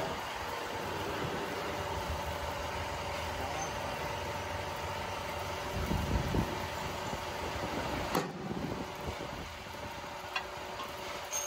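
Hydraulic press machine running steadily with a hum, with a rumble about six seconds in and a sharp click about eight seconds in.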